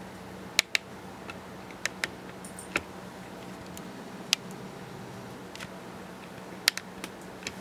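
About a dozen small, sharp clicks at irregular intervals, some in quick pairs, over a steady low hum.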